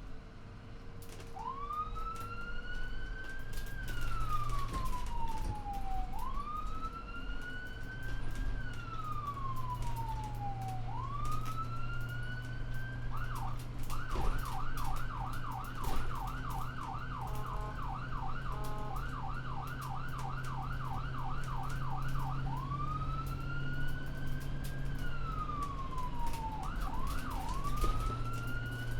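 Ambulance siren wailing, slowly rising and falling about every five seconds. A little before halfway it switches to a fast yelp of about three sweeps a second for roughly nine seconds, then returns to the wail with a brief double yelp near the end. A steady low engine hum runs underneath.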